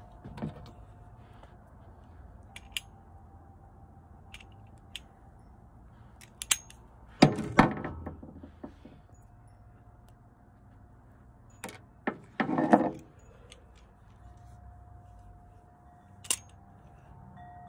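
Small clicks and metallic clatter as a metal toy cap-gun revolver is handled and loaded with caps, with two louder bursts of clattering about seven and twelve seconds in.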